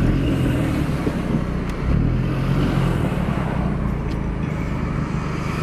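Road traffic: car engines running and vehicles moving past a stopped car, a steady low rumble with tyre and road noise.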